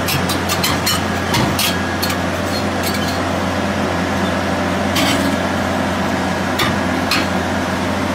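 Heavy low-loader truck's diesel engine running with a steady low drone as it passes at slow speed. Sharp clicks and knocks cut in, several in the first two seconds and a few more later.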